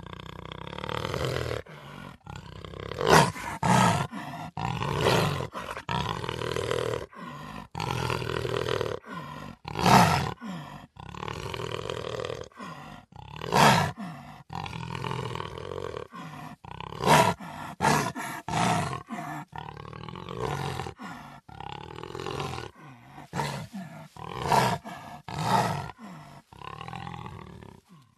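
Cheetah calling over and over: drawn-out pitched calls alternating with short, loud, sharp outbursts, joined by abrupt cuts.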